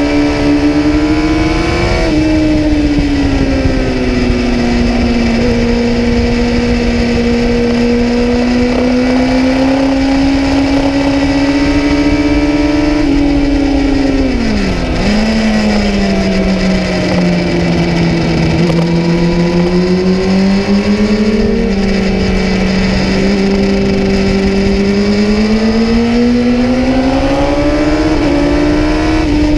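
Kawasaki ZX-10R's inline-four engine running at high revs in third gear, heard onboard. The revs dip sharply about halfway through, stay lower for a few seconds, then build back up and climb again near the end.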